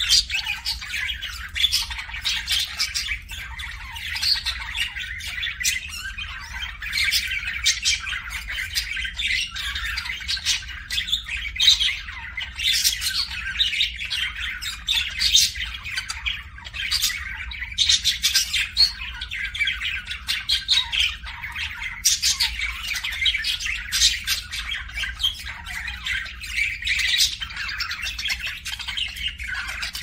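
Budgerigars chattering: a continuous warble of rapid, high chirps and squawks.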